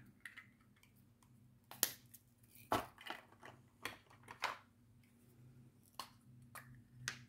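Scattered light clicks and crinkles, about eight in all, from handling small plastic bags of diamond-painting drills, over a faint steady low hum.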